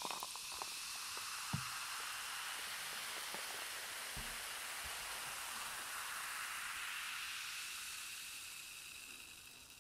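Beer fizzing in a glass mug: a steady soft hiss of carbonation bubbles with a couple of faint ticks, fading out near the end.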